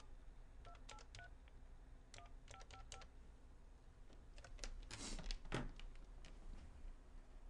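Touch-tone desk telephone being dialed: short two-note keypad beeps, about eight presses in two quick runs over the first three seconds. A short rustling scrape follows about five seconds in.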